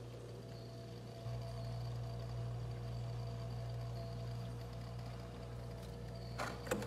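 Steady low hum of a freezer's refrigeration machinery, with faint steady whining tones above it. A couple of sharp clicks come near the end.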